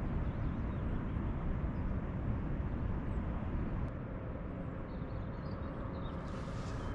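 Wind buffeting the microphone outdoors: a steady low rumble that eases slightly about four seconds in.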